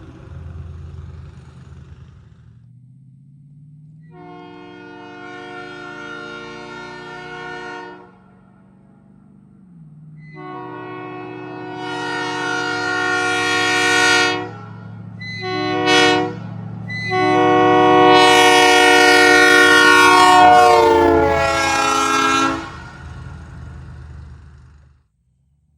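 Multi-chime locomotive air horns blowing four chords: a quieter blast, a longer louder one, a short toot, then the longest and loudest blast. A low steady hum runs underneath.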